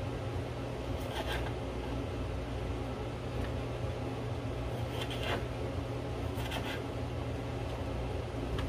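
Kitchen knife cutting grape tomatoes into quarters on a bamboo cutting board: a few soft taps of the blade on the wood, about a second in and twice more near the middle, over a steady low hum.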